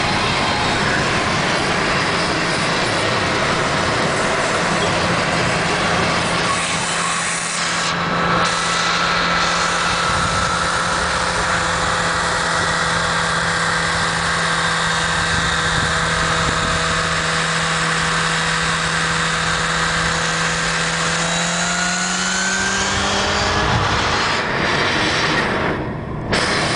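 Steady road and wind noise inside a car cruising at highway speed, under a steady engine drone that climbs in pitch a few seconds before the end.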